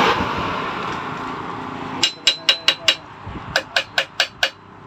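Quick metal-on-metal taps with a short ring, about five a second, in two runs of four or five, from a tool working the nut on a Honda XRM125 motorcycle's steering stem while the steering-head ball-race bearings are refitted. A fading rush of noise comes before the taps, over the first two seconds.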